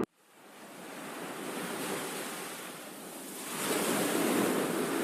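A rushing, wind-like noise that fades in right after a sudden cutoff and swells twice, with no tones in it.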